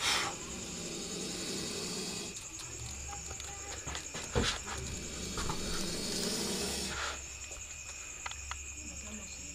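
Steady high-pitched trill of crickets, with two short hissing bursts: one right at the start and one about four and a half seconds in.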